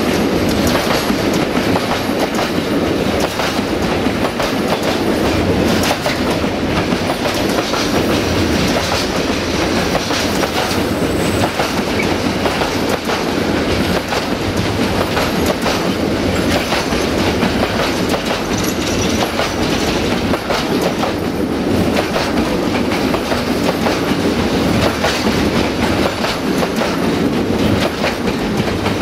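Container flat wagons of a freight train rolling past close by, their wheels clattering over the rail joints in a steady clickety-clack.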